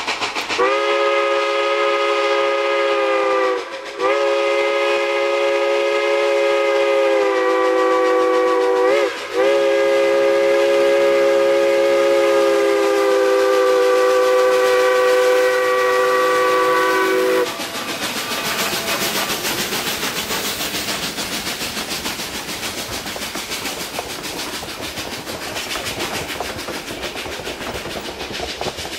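Steam locomotive's multi-tone chime whistle sounding three long blasts, the last and longest about eight seconds. After the whistle cuts off, a steady rushing hiss carries on.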